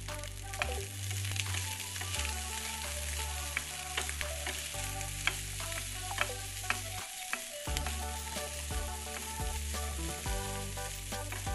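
Egg fried rice sizzling in a hot non-stick frying pan while a spatula stirs and folds it, with scattered sharp clicks of the spatula against the pan.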